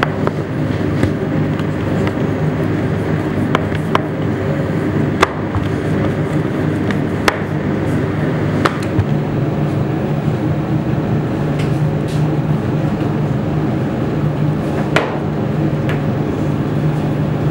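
A machine running with a steady hum, with scattered sharp clicks and knocks over it.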